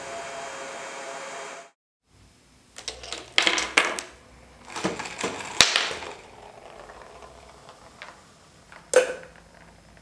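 Ion hair dryer blowing steadily, cutting off abruptly a little under two seconds in. After a short gap comes a run of clicks and clatters from small parts of a tabletop chain-reaction contraption, then a faint whir from a small spinning propeller. One sharp knock near the end comes as a ping-pong ball drops into a clear plastic tube.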